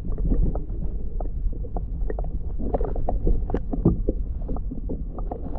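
Muffled underwater sound picked up by a GoPro in its waterproof housing just below the surface: a steady low rumble with many irregular small clicks and knocks of water moving around the camera.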